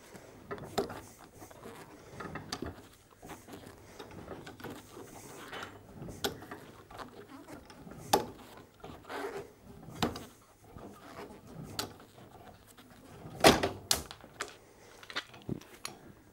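Wheel-type steel pipe cutter being tightened and turned round a low carbon steel pipe clamped in a pipe vise, with irregular metallic clicks and scrapes. A louder clunk comes toward the end as the cutter goes through the pipe.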